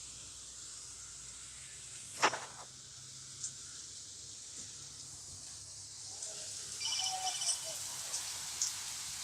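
Steady hiss of heavy rain, with one sharp knock about two seconds in. The rain grows louder from about six seconds, with scattered drip clicks and a brief high chirping around seven seconds.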